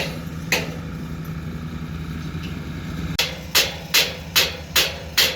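Bulldozer's engine running steadily. Sharp knocks ring out over it: one about half a second in, then a regular run of five from about three and a half seconds in, roughly two and a half a second.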